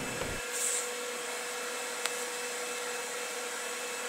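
Steady hiss and hum of TIG welding equipment between tack welds on stainless steel tubing, with a short higher hiss about half a second in and a single click about two seconds in.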